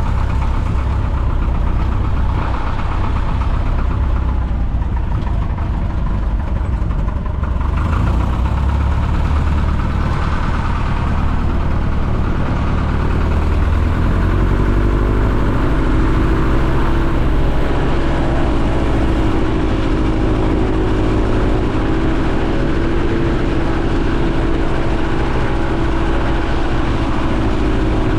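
Piper J-3 Cub's engine running, heard from the cockpit; about halfway through the throttle is advanced and the engine pitch rises, then holds steady at the higher speed.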